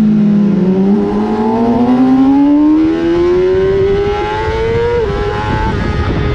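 Inline-four sportbike engine heard onboard at racing speed. It pulls low revs out of a corner, then climbs steadily under hard throttle for about four seconds. There is a brief dip about five seconds in, and it then holds high revs, with wind rush over the bike.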